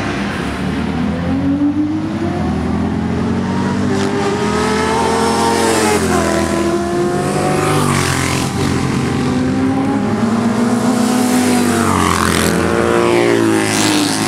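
Several classic racing motorcycle engines running loud and overlapping, their pitch rising and falling as they accelerate, change gear and back off.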